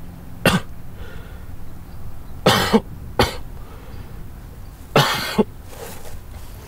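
A man coughing in several short, harsh fits, some of them double coughs.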